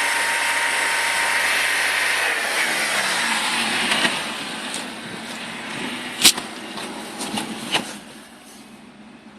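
BMW 318i M43 four-cylinder engine running with a rattle, which appeared after the water pump failed and the engine overheated; it is switched off about two seconds in and spins down. A few sharp clicks follow, the loudest about six seconds in.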